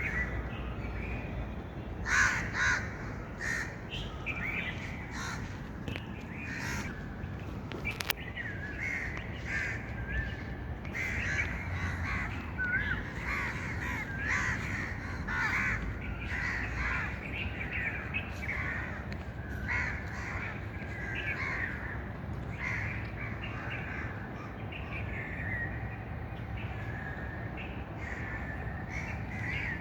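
Many birds calling and chirping continuously, short overlapping calls with a louder cluster about two seconds in. A single sharp click about eight seconds in.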